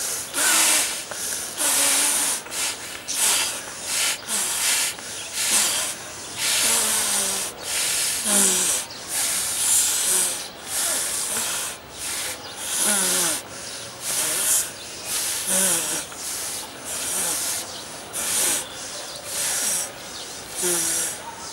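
Condoms being blown up by mouth: repeated hard breathy puffs of air into the rubber, roughly one a second and irregular, with a few short rising squeaks between them.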